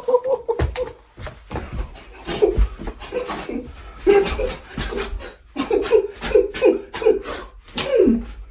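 A man laughing hard and breathlessly: heavy breaths at first, then a run of short laughs, each falling in pitch, about two a second in the second half.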